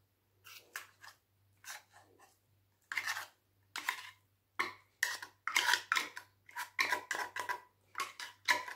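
Metal teaspoon scraping and clinking inside a small tin can as canned tuna is scooped out. The scrapes come sparsely at first, then quickly one after another in the second half, with a light metallic ring.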